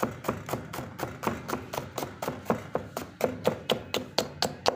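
Kitchen knife chopping a green bell pepper into strips on a cutting board, with quick, even knocks of the blade on the board, about four to five a second.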